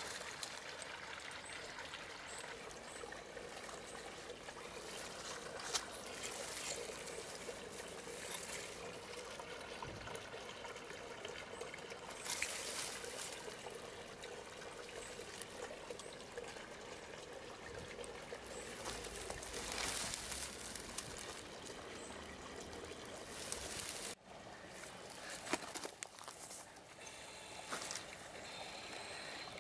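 Steady trickle of running water, with a few soft clicks and brief swells in level.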